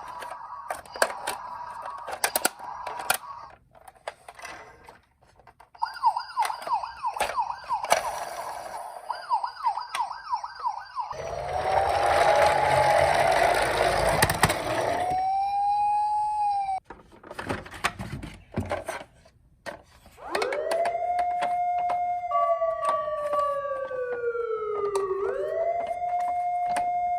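Toy minicar emergency vehicles' electronic sirens sounding one after another: a fast repeated up-and-down yelp, a loud noisy stretch with a pitch glide, then a slow wailing siren that falls and then rises again. Clicks of the toys being handled come between the sirens.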